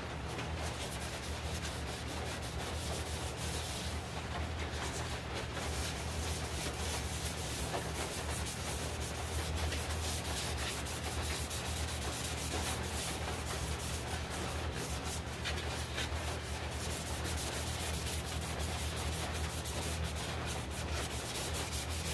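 Cloth pad rubbing and wiping over the surface of a turned pine globe, in quick repeated strokes, over a steady low hum.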